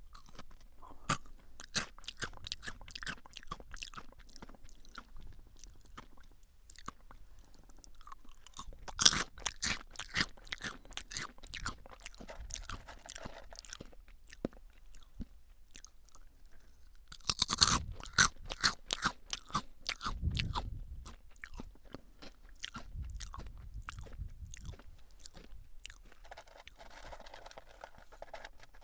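Close-miked crunchy chewing of Jagabee lightly salted potato sticks: rapid crisp crunches throughout, with two louder bursts of biting, about a third of the way in and again just past halfway.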